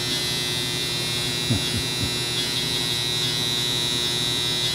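A steady, high-pitched electric buzz at about the loudness of speech, which cuts off abruptly near the end.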